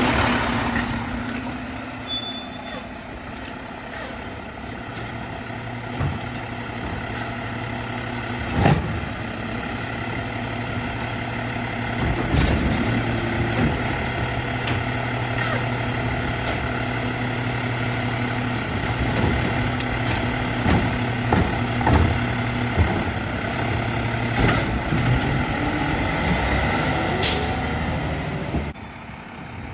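Mack LEU garbage truck with a Labrie Helping Hand automated side-loader running at the curb: a steady diesel hum and a steady whine as the arm works a cart. Several short, sharp hisses of air come through, the loudest about nine seconds in.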